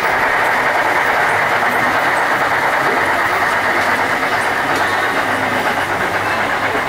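Model trains running on the layout's tracks: a steady whirring rattle of small wheels and motors.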